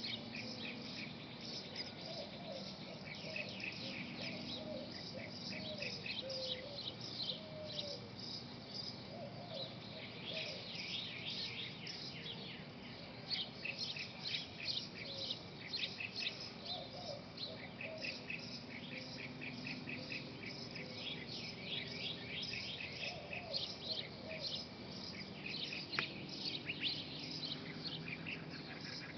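Birds chirping and calling: a steady run of short, high chirps, with lower sliding calls coming and going.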